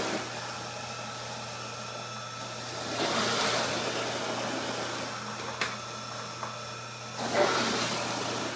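Electric juicer motor running steadily, its hum swelling into a louder grinding about three seconds in and again about seven seconds in as fruit is pushed down the feed chute. A sharp click comes in between.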